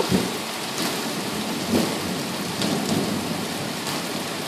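Heavy rain falling steadily in a thunderstorm, drops hitting an open window's glass, with a low rumble of thunder swelling underneath about two seconds in.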